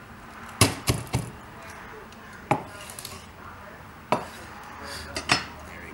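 Santoku knife being forced down through a raw chicken's backbone on a plastic cutting board, giving about seven sharp knocks and cracks: three in quick succession, then single ones spaced a second or more apart.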